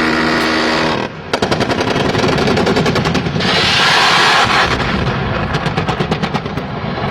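Attack helicopter's automatic cannon firing long rapid bursts, a fast regular rattle, heard over the aircraft's intercom. A steady hum cuts off about a second in, and a loud hiss comes in the middle between bursts.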